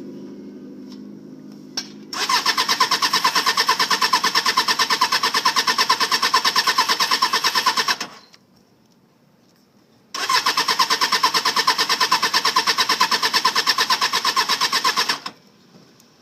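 1995 Suzuki Katana 600's starter cranking its inline-four in two long goes of about six and five seconds, a steady rapid pulsing with a short pause between, the engine never firing. A click comes just before the first go.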